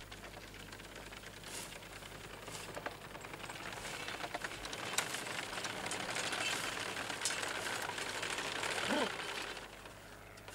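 Horse-drawn sickle-bar hay mower clattering as it passes, growing louder to its peak past the middle, then falling away near the end.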